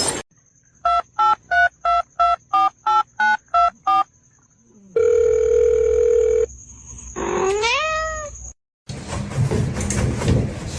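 Ten quick telephone keypad tones dialing a number, then a steady phone tone for about a second and a half, then a cat meowing once with a rising pitch. Near the end a different, noisy sound begins.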